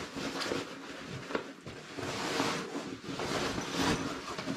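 A fabric carry bag rustling as hands open it and reach inside, with a light knock about a second and a half in.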